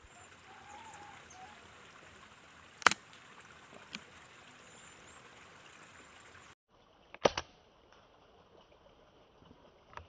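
Air rifle firing twice, each shot a single sharp crack, about four and a half seconds apart, over a steady faint outdoor hiss.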